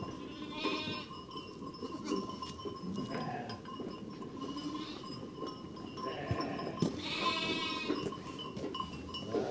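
Sheep bleating: two quavering bleats, one about half a second in and a longer one around seven seconds in.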